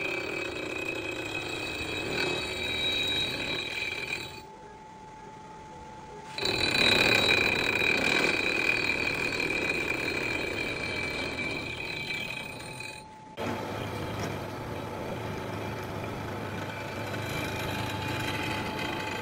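Milling cutter machining the counterweights of an engine crankshaft, trimming them for piston clearance: a steady cutting noise with a high ringing whine. It drops away briefly a few seconds in, comes back louder, and changes to a duller, lower tone about two-thirds through.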